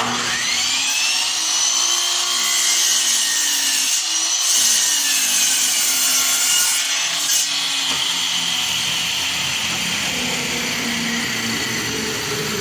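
Electric compound miter saw starting up with a rising whine, then its blade cutting across a wooden plank, loudest and densest for a few seconds around the middle, and running on at speed.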